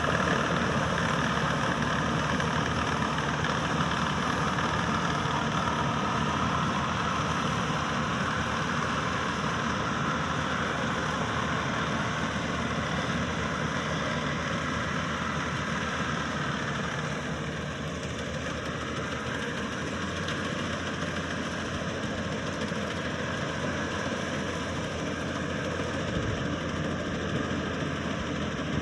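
Maxxi Bimo 102 Top combine harvester running steadily, its engine and machinery giving a continuous mechanical noise that eases slightly a little past the middle.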